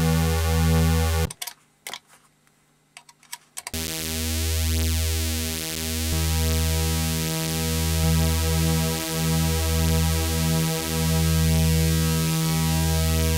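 Weird Sound Generator DIY synth, its oscillators built on a 40106 hex Schmitt-trigger chip, putting out a buzzy electronic drone that throbs in slow pulses. About a second in it cuts out for roughly two seconds, with only a few clicks, then comes back with a changed pulsing pattern.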